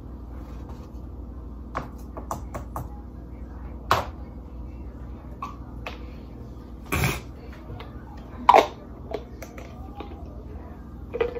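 Scattered clicks, taps and knocks of plastic baby bottles, bottle parts and bags being handled on a table, the loudest about seven and eight and a half seconds in, over a steady low room hum.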